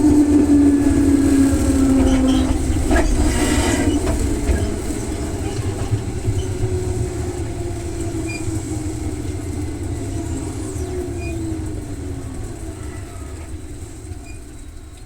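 Electric commuter train running on the rails, its motor whine falling steadily in pitch as the train slows, over a low rumble that fades away.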